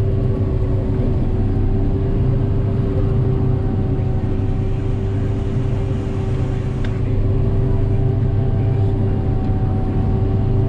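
Self-leveling hillside combine running steadily while cutting wheat, heard from inside the cab: a constant low drone with a steady held tone above it.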